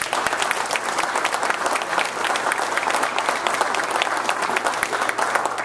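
A small audience clapping, a dense, steady spread of many hand claps.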